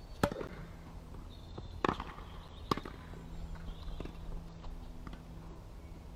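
Tennis racket strings hitting the ball and the ball bouncing on a hard court: sharp pops about a quarter second in, near two seconds in and near three seconds in, followed by lighter taps of footsteps. A faint steady hum runs underneath.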